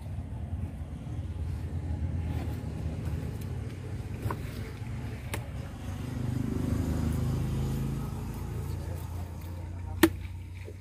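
A steady low rumble of background noise, with a few sharp knocks of a knife against a wooden cutting board as tuna loins are sliced. The loudest knock comes near the end.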